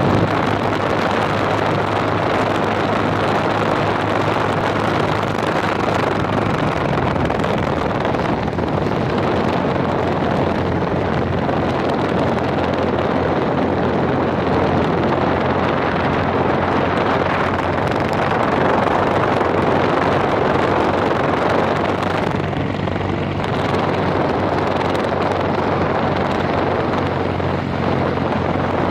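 Wind buffeting the microphone of a moving motorcycle, with the Yamaha's engine running steadily underneath; the engine's pitch shifts slightly about six seconds in.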